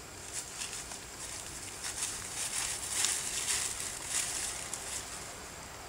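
Leaves and twigs rustling and crackling irregularly as long-tailed macaques move about in the tree branches, loudest about halfway through, over a steady background hiss.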